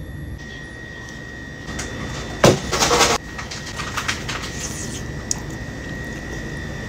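A person slurping instant noodles with one loud slurp about two and a half seconds in, followed by small clicks of chewing and chopsticks, over a steady high-pitched hum.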